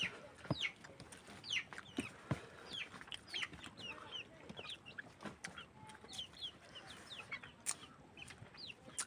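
Chicks peeping: many short, high chirps that each slide downward, overlapping without a break, with a few sharp clicks and knocks among them.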